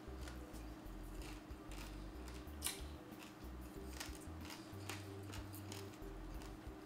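Chewing crispy roasted pig-head skin: scattered crunches, the sharpest a little under three seconds in, over a faint steady hum.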